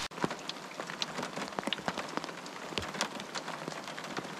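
Pouring rain: a steady hiss of rain on the lake, with many separate drops ticking close by.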